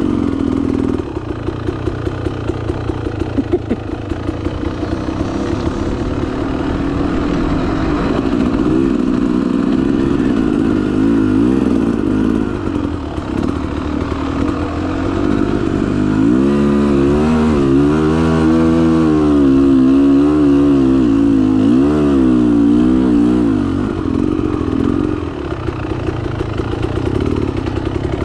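2021 Beta Xtrainer 300 two-stroke dirt bike engine, fitted with an FMF Gnarly pipe, running under way, its revs rising and falling as the throttle is worked. The revs swing up and down most sharply in the second half.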